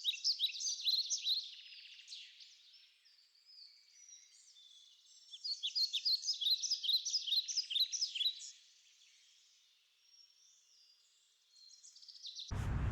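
A small bird singing: two runs of rapid, high, repeated chirping notes, each lasting about three seconds, with a pause between them.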